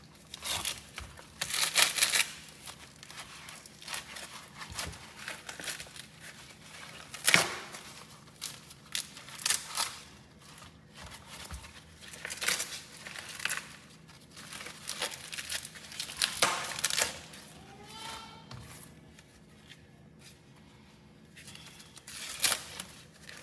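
Fresh corn husks being torn and peeled off ears of corn, a run of irregular rips with crinkling in between and a quieter stretch near the end.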